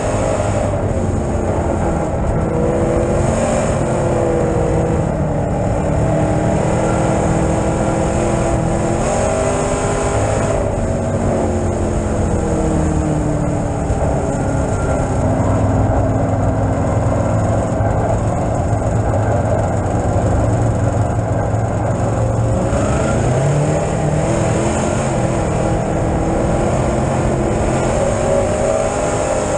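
A B-Modified dirt track race car's V8 engine, heard from inside the cockpit while lapping. Its pitch rises and falls several times as the car accelerates and backs off, with a longer, lower stretch in the middle.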